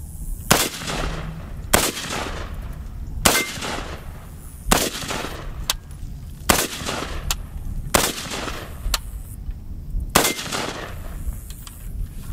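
Daewoo K1A1 5.56 mm rifle fired in semi-automatic, seven aimed shots at a steady pace about one and a half seconds apart, each followed by a short echo.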